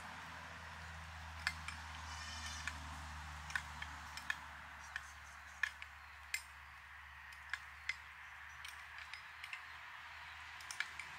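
A metal spoon stirring in a small glass cup, clinking against the glass about a dozen times at irregular intervals, with a short rattle about two seconds in.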